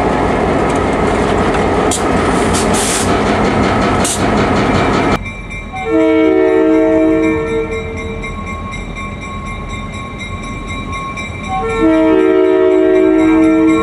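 A GP38-2 diesel locomotive runs past close by, with engine noise and sharp clicks from the wheels over the rail. After a sudden cut, a locomotive air horn, a three-note Leslie RS-3L chord, sounds two long blasts about five seconds apart.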